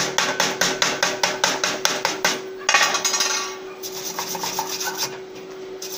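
Steel chipping hammer knocking slag off a fresh weld bead on square steel tube, quick ringing metal strokes about five a second. About halfway in it gives way to a wire brush scrubbing the weld clean.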